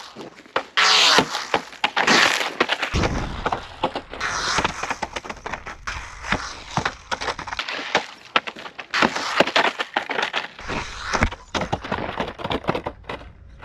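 A small-scale brushless RC car, the MJX Hyper Go, driven hard over loose gravel and sand: tyres crunching and flinging stones, with a rapid run of sharp clicks and knocks. A low rumble comes and goes in two stretches.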